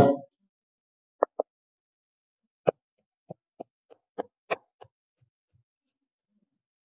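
Chef's knife chopping through cabbage onto a plastic cutting board: a series of short, sharp knocks at an uneven pace that stop about five seconds in.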